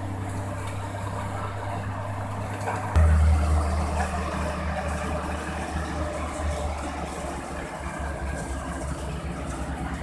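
Combine harvester running while cutting wheat: a steady engine hum with machinery noise, becoming abruptly louder about three seconds in.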